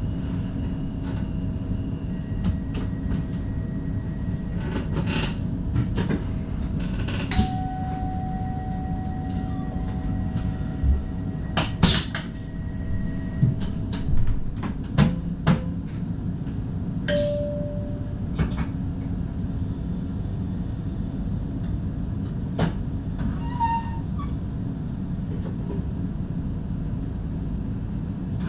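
NS DDZ double-deck electric intercity train running at speed, heard from the driver's cab: a steady low rumble with irregular sharp clacks and knocks, bunched in the middle, and a few brief faint tones.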